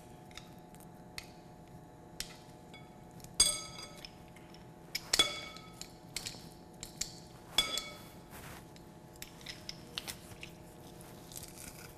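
A metal fork and garlic press clinking against a glass mixing bowl as pressed garlic is scraped into the marinade: three ringing clinks, about three and a half, five and seven and a half seconds in, with lighter taps and scrapes between.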